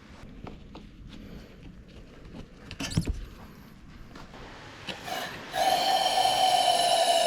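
A few light clicks and a sharp knock, then a steady, even-pitched motor whine that starts about five and a half seconds in and keeps running.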